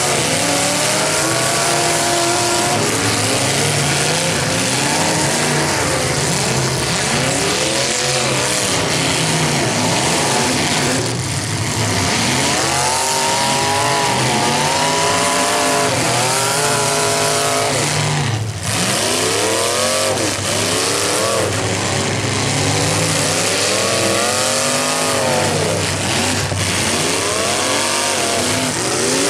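Several demolition derby cars' engines revving hard together, pitch climbing and falling again and again over a continuous loud din.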